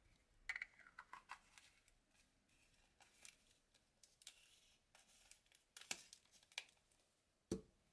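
Faint, scattered clicks and taps from a white Posca paint pen being handled and readied, with a sharper knock near the end.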